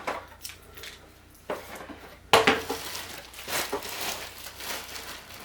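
Metal smart-lock parts and keys being handled, giving a few clinks and knocks, the sharpest a little over two seconds in, with rustling between.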